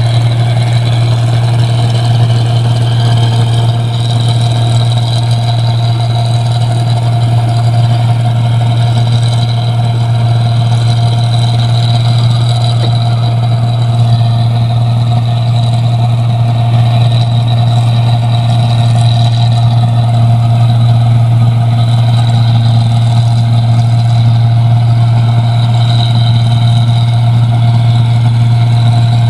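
Rice combine harvester running steadily: a loud, constant low engine hum with fainter steady higher tones over it.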